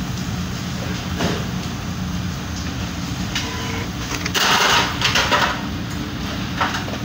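Commercial kitchen by a charcoal grill under a large extractor hood: a steady low rumble runs throughout. A short, loud burst of noise comes about four and a half seconds in, with smaller ones after.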